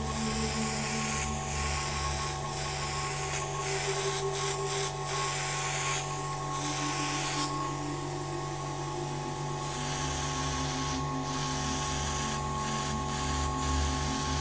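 Airbrush spraying: a steady hiss that breaks off for a moment many times and starts again, over a steady hum.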